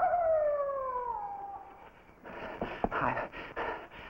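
Coyote howling: one long call that wavers at first, then slides steadily down in pitch. About two seconds in it is followed by a quick series of short sharp sounds, about five a second.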